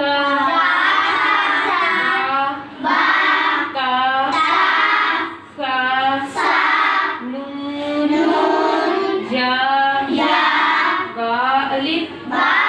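A group of young girls chanting Arabic letter names aloud in unison, a sing-song recitation of a Quran reading primer lesson, in phrases with short breaks between them.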